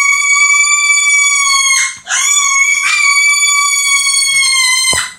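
Pet pig squealing in distress: long, loud, steady high-pitched squeals, the first breaking off about two seconds in and the next, after a short rising onset, held until the very end.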